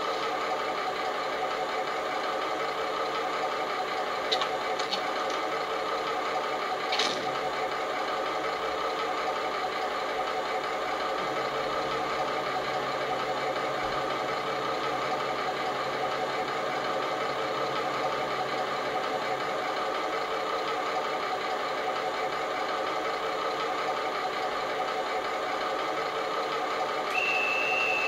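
Model Class 29 diesel locomotive's DCC sound decoder playing the diesel engine idling steadily through the model's small speaker. A low compressor hum joins from about 11 s to 19 s, and a guard's whistle starts with a steady shrill tone near the end.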